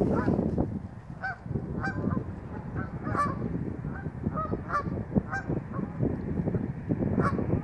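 A flock of geese honking on the river: many short calls from several birds, one after another, over a steady low rumble.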